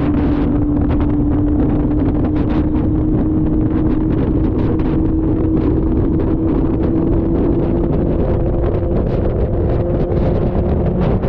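Wind buffeting a GoPro Hero 9's microphone while riding, a loud, constant rumble. Under it runs a steady hum that slowly rises in pitch.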